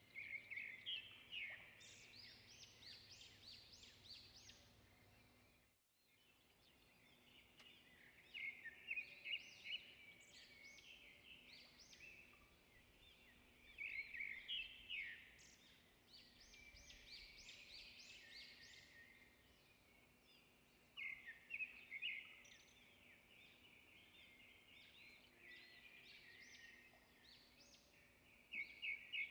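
Birds chirping in quick bursts of short calls that recur every few seconds, over a faint steady hum.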